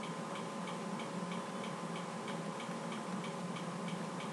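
Steady, even ticking, about three ticks a second, over a faint steady hum in a quiet room.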